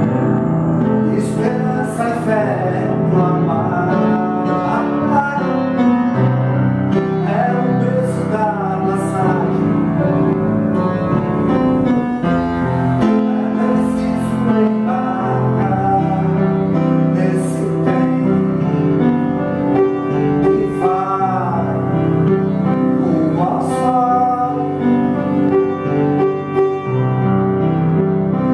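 A song sung to piano accompaniment, with held notes and a wavering, vibrato-like voice line.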